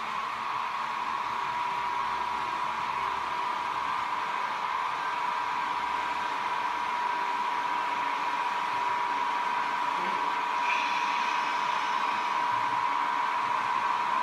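HAG Re 460 model electric locomotive running on Märklin track with its container train: a steady motor whine over wheel and track rumble, growing a little louder as the train approaches.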